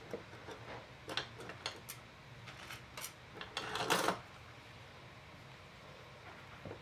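Small handling noises: a string of light clicks and taps, then a short scraping rustle about four seconds in, the loudest sound here.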